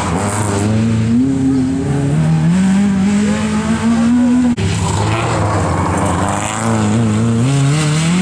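Rally car engine (Opel Astra) revving hard as it drives out of a gravel-strewn corner, its pitch climbing through the revs. There is a sudden break about four and a half seconds in, then an engine pulls up through the revs again near the end.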